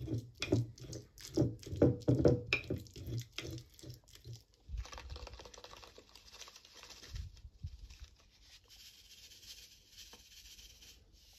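A metal fork mashing avocado against a ceramic plate: quick, uneven taps and squishy clicks for the first four seconds or so. Then a soft hissing rustle as smoked paprika is shaken out of a paper packet, and again later from a spice jar.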